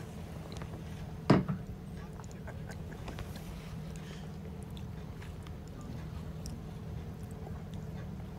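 Sailboat's inboard engine running steadily with a low hum, the boat motoring in light wind. One sharp knock about a second in is the loudest sound, with a few faint clicks after it.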